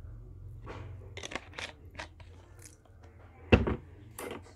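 Roasted sesame dressing squeezed out of a squeeze bottle onto a plate in a series of short clicks, then a loud thump about three and a half seconds in as the bottle is set down on the table, and a shorter knock just after.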